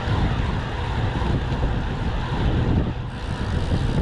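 Wind rushing over an action camera's microphone on a moving road bike, a steady noise with road and tyre noise beneath it; it eases briefly about three seconds in.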